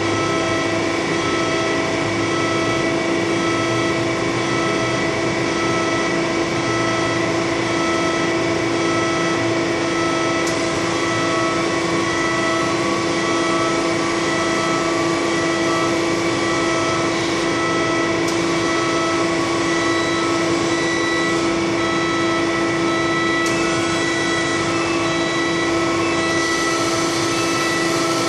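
Articulating boom lift's hydraulic power unit running as the platform is raised and swung: a steady machine hum with one strong constant tone.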